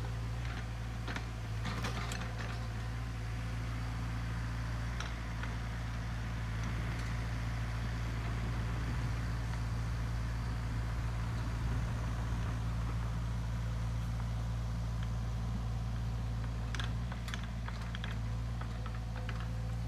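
Sany SY50U mini excavator's diesel engine running steadily at a distance while it clears saplings and brush, with scattered sharp clicks and cracks, most of them about two seconds in and again near the end.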